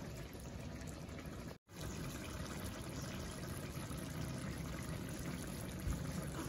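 Jackfruit-and-coconut-milk stew simmering in an open wok, a steady bubbling hiss. The sound cuts out completely for an instant about one and a half seconds in.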